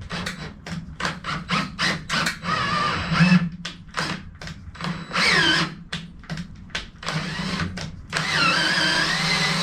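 Cordless drill-driver driving screws, run in many short trigger bursts and a few longer runs, its motor whine sliding up and down in pitch as it loads.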